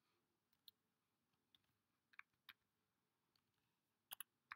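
Faint, scattered keystrokes on a computer keyboard: about eight light clicks spread over several seconds, with two in quick succession near the end, as the vi editor is quit and the file saved.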